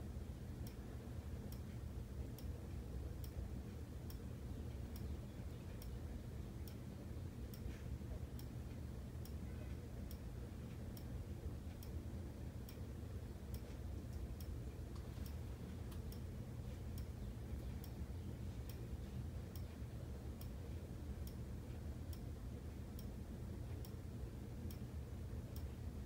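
Quiet room tone: a steady low hum with faint, regular ticks about twice a second, like a clock ticking.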